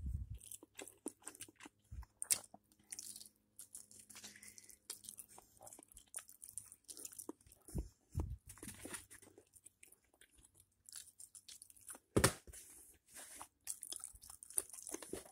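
A person chewing and biting crunchy food close to the microphone, an irregular run of crunches and mouth clicks. A couple of louder knocks stand out, one at the start and one about twelve seconds in.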